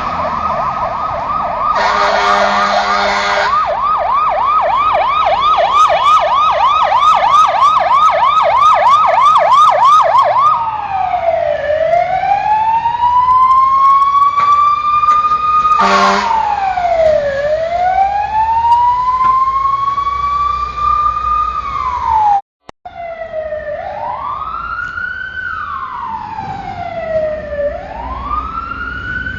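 Fire engine siren in a fast yelp, with a short horn blast about two seconds in, then switching to a slow rising-and-falling wail. After a brief cut, the wail continues in quicker cycles over the low rumble of the truck.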